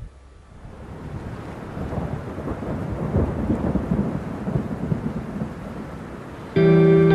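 A low, rough rumbling noise that swells and then eases off. Music with plucked guitar starts loudly about six and a half seconds in.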